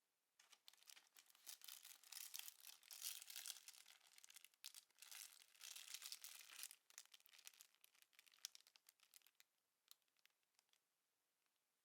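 Faint crinkling and scratchy rustling, a dense run of tiny crackles that fades out near the end.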